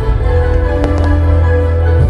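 Loud show music with held tones and a heavy bass, with two short sharp cracks about a second in.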